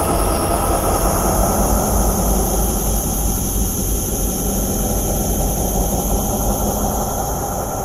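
Wind rushing over a bike-mounted action camera's microphone at about 30 mph: a loud, steady, rumbling rush.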